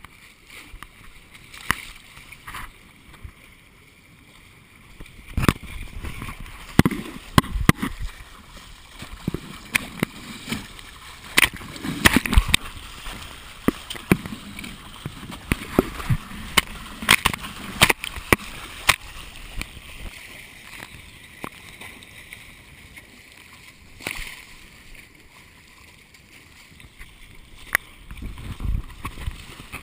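Water sloshing and splashing against the hulls of a small sailing catamaran under way, with irregular sharp slaps of waves and spray hitting the hull and the camera. The splashing is busiest in the first half and calms for a while after about twenty seconds.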